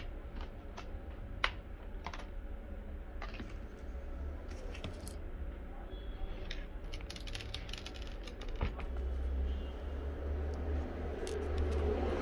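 Scattered plastic clicks and snaps as the bottom cover of a Dell Latitude E7450 laptop is unclipped and the opened chassis is handled, over a steady low hum that grows louder in the second half.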